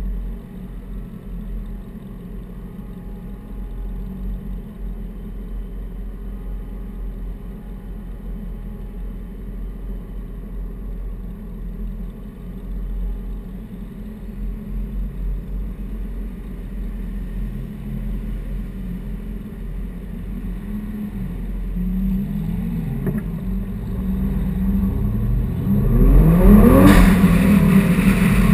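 Car engine idling low and steady in slow traffic, then revving up with a rising pitch as the car pulls away, getting loudest shortly before the end.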